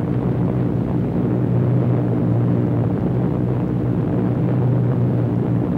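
Piston engines of a bomber in flight, droning steadily with a deep, even hum.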